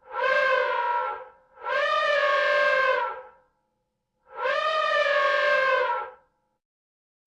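Elephant trumpeting: three separate trumpet calls, each one to two seconds long with a brassy pitched tone, cut apart by total silence.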